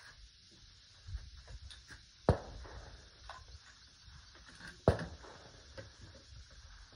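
Two sharp gunshots about two and a half seconds apart, each with a short trailing echo, over faint rustling and small clicks.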